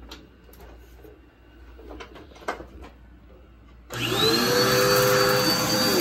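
A few light knocks and clicks, then about four seconds in a red upright vacuum cleaner is switched on: its motor spins up with a short rising whine and settles into steady running with a high whine over the rush of suction.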